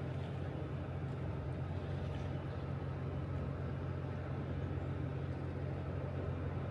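Steady low rumble and rushing hiss of river water pouring out below a dam, with no breaks or separate events.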